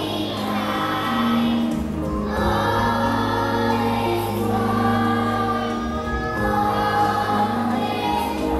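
A preschool children's choir singing a song together, with an instrumental accompaniment holding low notes underneath.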